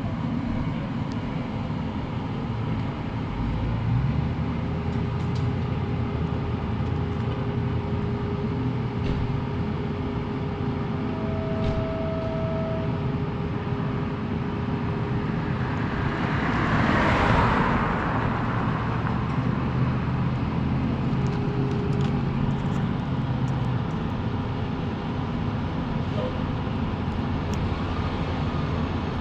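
Road traffic with vehicle engines running steadily. About two-thirds of the way through, a vehicle passes close by, its noise swelling and fading over about two seconds.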